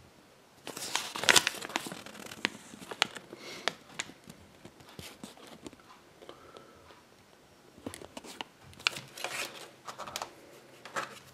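Thin paper leaflet being unfolded and handled, crinkling and crackling in two bouts, one starting about a second in and another near the end, with scattered light ticks between.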